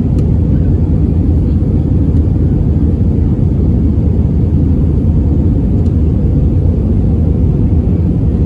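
Steady cabin noise of an Airbus A319 in flight, heard from a window seat beside the wing: a constant low rumble of engines and rushing air that does not change.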